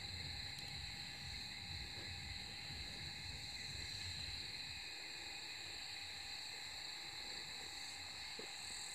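Steady night-time chorus of calling insects: several unbroken high-pitched trills layered together. A low rumble of handling noise on the microphone eases off about halfway through.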